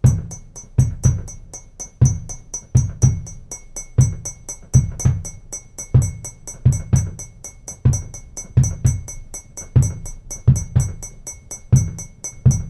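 Music carried by a steady percussion beat: low drum thumps, often in pairs, repeating about once a second under fast, even high ticks about five or six times a second.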